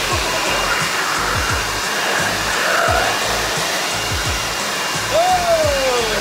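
Leaf blower running at full blast with a steady rushing of air, over background music with a low thumping beat about twice a second. About five seconds in, a high wail rises briefly and then slides down in pitch.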